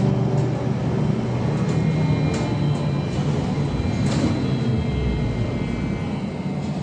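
Cabin noise of a VMZ-5298.01 trolleybus under way: a steady hum from the electric drive with faint high tones over road and tyre noise. A couple of short clicks or rattles come about two and a half and four seconds in.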